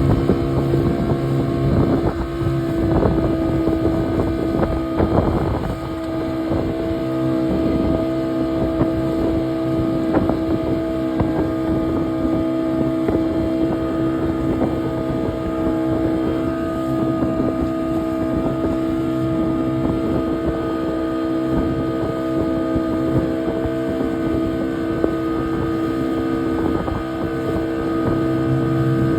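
Boat engine running steadily under way, a constant droning hum with rushing wind on the microphone.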